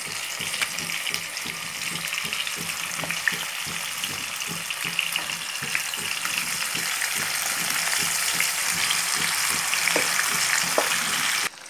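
Yogurt-marinated chicken sizzling as it is added in batches to hot oil and ghee with whole spices: a steady frying hiss with scattered crackles. It grows a little louder as more chicken goes in, then stops abruptly near the end.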